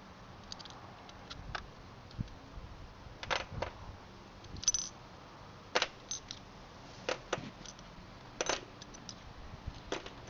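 Metal clutch plates and tools clinking and tapping as a motorcycle clutch pack is taken apart: irregular sharp metallic clicks, one every half second to a second or so.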